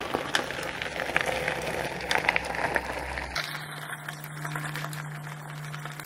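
Mountain bike tyres crunching and crackling on a gravel forest road, a scatter of small irregular clicks that thins out after about three seconds as the bike rides off.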